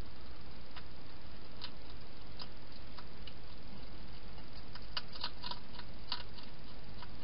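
Wild hedgehog eating from a bowl inside a plastic feeding box: irregular small clicks and crunches, bunched together about five to six seconds in, over a steady hiss.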